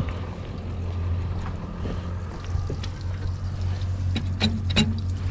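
A steady low hum, with a few sharp metallic clinks about four to five seconds in as the boat trailer's transom tie-down strap and its buckle are handled.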